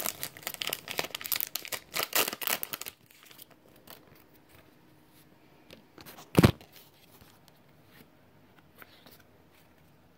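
Foil wrapper of a Pokémon trading-card booster pack being torn open and crinkled for about three seconds. Then quiet handling, with a single loud thump about six seconds in.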